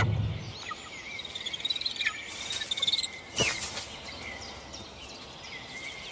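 Natural ambience of small birds chirping and calling, with insects. A single sharp click sounds a little past halfway.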